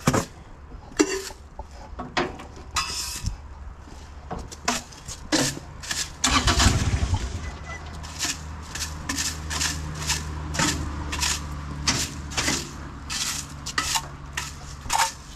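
Diesel engine starting: it catches with a loud burst about six seconds in and settles into a steady idle. Sharp clicks and knocks run throughout.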